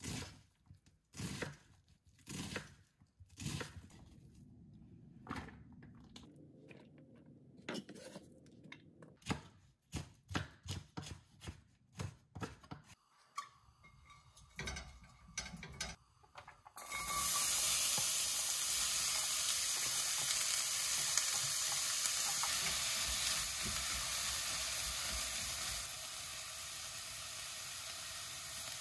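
Kitchen knocks and clatter of utensils and cookware, then food going into a hot pan about two-thirds of the way in and frying with a steady loud sizzle, which eases a little near the end.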